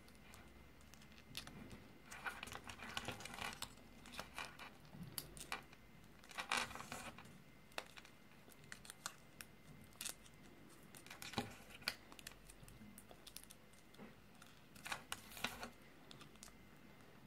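Small toy wrapper from a Kinder Surprise egg crinkling and tearing as fingers open it, in several short bouts with light clicks between.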